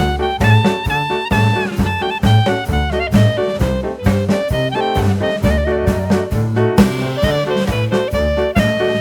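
Background music: upbeat swing-style jazz with brass and saxophone over a steady walking beat.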